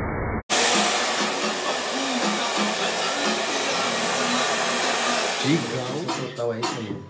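Handheld hair dryer blowing steadily, cutting in abruptly about half a second in. Music with a beat starts up near the end.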